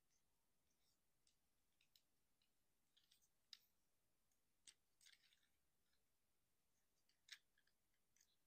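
Faint, scattered clicks and snaps of a plastic Transformers action figure's hinged parts being swung and locked into place during its transformation from car to robot, the loudest click about seven seconds in.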